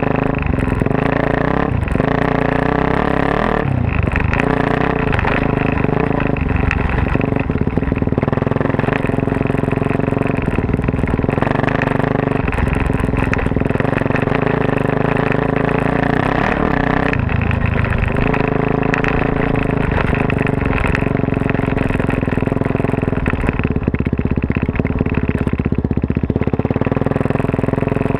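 Suzuki DR-Z400S single-cylinder four-stroke dirt bike, bored out to 440 cc and running a full Yoshimura off-road exhaust, under way on rough trail. Its engine note rises and falls with the throttle and gear changes.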